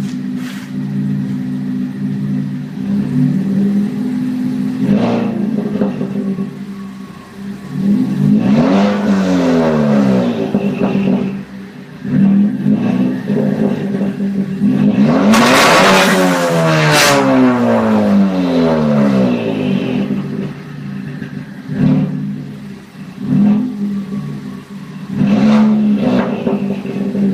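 Ford Focus ST's turbocharged engine through a Flowmaster Super 10 catback exhaust, idling and being revved. It gives a few short throttle blips and two longer revs that rise and fall, the biggest about halfway through, with sharp pops around its peak.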